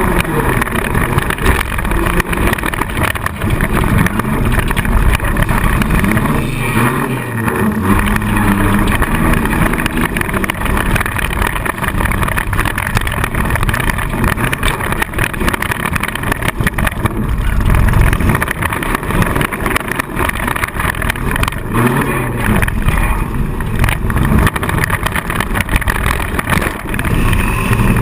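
Four-cylinder demolition derby car's engine revving up and down, heard from inside the car, with constant rattling and knocking from the car body.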